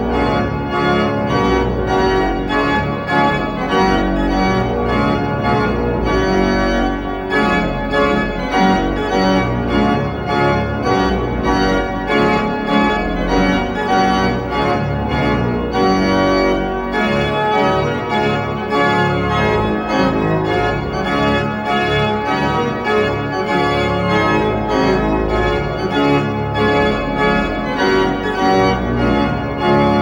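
Baroque pipe organ of the Wieskirche playing full, many-voiced chords, with a deep pedal bass that comes and goes.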